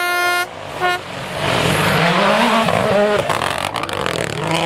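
A short car-horn toot, then a race-car engine sound effect revving, its pitch rising and falling.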